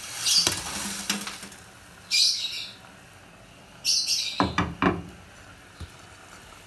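A small bird chirps in three short bursts about two seconds apart. Dry spaghetti rattles off a ceramic plate into a pot of boiling water, and a cluster of knocks from dishware on the stove follows about four and a half seconds in.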